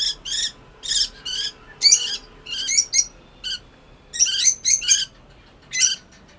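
Lovebird giving a rapid series of short, shrill, harsh calls, about two a second, with a brief pause near the end: the alarmed screeching of a bird being held by hand.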